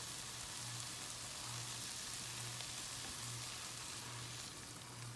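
Mushrooms sizzling in meat juices in an enameled cast-iron pan, a steady hiss that eases slightly near the end as cold heavy cream is poured in.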